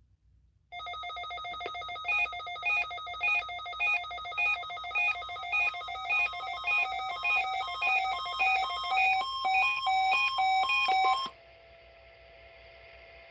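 Weather radio alert signal from the weekly NOAA Weather Radio test: a rhythmic pattern of electronic beeping tones at several stepping pitches, pulsing about twice a second. It starts about a second in and cuts off suddenly near the end, leaving a faint hiss.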